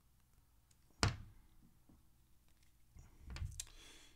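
Kershaw Knockout folding knife worked by hand: one sharp snap of the blade about a second in, then a duller cluster of knocks and clicks around three seconds in. The blade still has play at the pivot.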